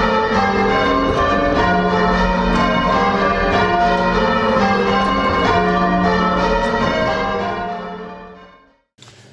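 Church bells ringing changes: many bells struck in quick overlapping succession, fading out near the end.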